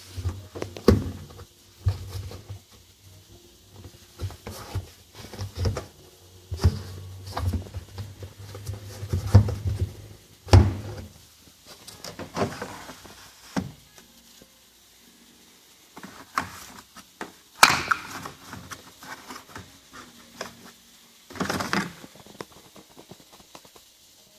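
Irregular clunks and knocks from an AEG front-loading washing machine being handled, with a low steady hum for about the first ten seconds that then stops.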